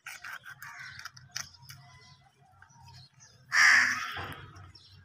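A crow caws once, loud and harsh, about three and a half seconds in. Beneath it, faint rustling and small clicks of plastic cooking-fat pouches being slit with a knife and squeezed out.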